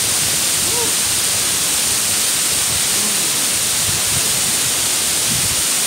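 Mumlava waterfall rushing steadily, an even hiss of falling water that does not change.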